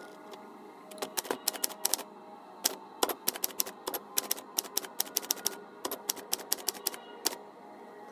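Manual typewriter typing: irregular sharp clacks of the typebars striking the paper on the platen, in quick runs from about a second in until near the end.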